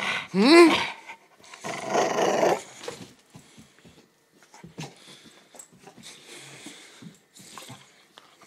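Pit bull growling and vocalizing close to the microphone: a loud pitched call that rises and falls in the first second, a rough growl about two seconds in, then quieter sounds with scattered clicks.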